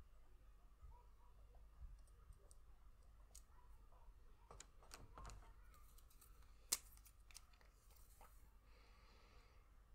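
Faint clicks and taps of clear plastic Spirograph gears being handled on the paper, with one sharp click about seven seconds in and a brief soft rustle near the end.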